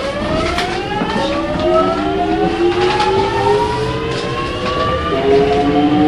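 Kintetsu 1420 series electric train pulling away, its VVVF inverter and traction motors whining in several tones that rise steadily in pitch as it gathers speed. About five seconds in, the whine steps down in pitch and starts rising again.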